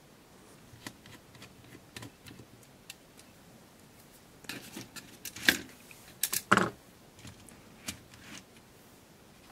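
Light clicks and rustles of a circuit board and plastic case parts being handled, with a few sharper clicks and short scrapes a little past the middle.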